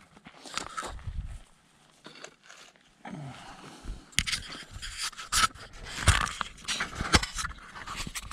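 Footsteps crunching and scraping on a dry, rocky dirt trail, mixed with knocks and rubbing from handling the action camera. Quiet at first, the steps and knocks get busier and louder about three seconds in.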